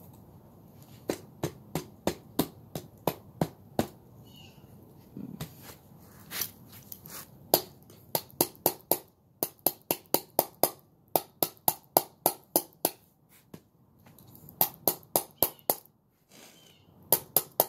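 A hammer repeatedly striking, driving a bearing back into a go-kart wheel hub. The blows come in quick runs of about three a second, with short pauses between the runs.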